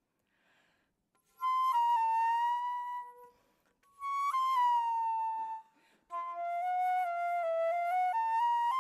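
Solo flute playing slow, sustained notes: after a brief pause, two long held tones that each sag slightly in pitch, separated by short breaths, then from about six seconds in a continuous phrase of shorter notes stepping up and down.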